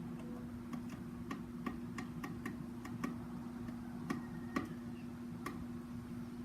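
Light, irregular taps of a utensil on a mixing bowl, about two or three a second, over a steady low hum.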